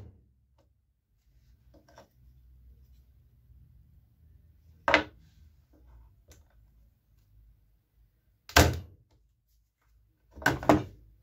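KOBB KBZ90 electric nail gun firing twice into a wooden strip at full power, with a sharp clack about five seconds in and a louder one about three and a half seconds later, each driving a 25 mm nail in flush to the head. A double knock follows near the end.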